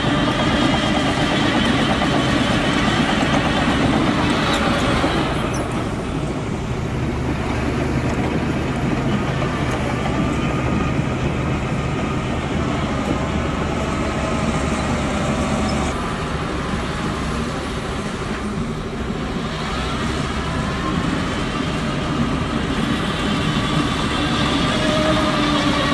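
Bulldozer's diesel engine working under load, its pitch rising and falling as it pushes dirt, louder at the start and again near the end.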